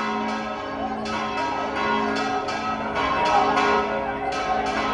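Church bells pealing rapidly, about three strikes a second, a festive peal for the Virgin's image entering the church. Crowd voices sound beneath the bells.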